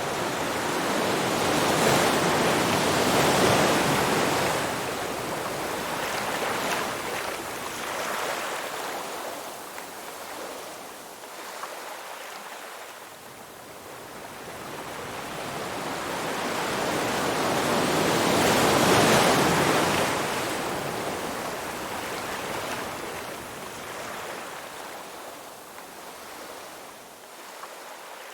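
Ocean waves washing onto a shore: two slow swells of surf, the first building a couple of seconds in and the second about two-thirds of the way through, each rising and then draining away.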